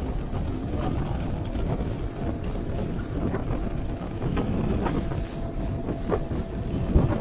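Strong wind buffeting the microphone, a heavy steady low rumble, with a few brief knocks.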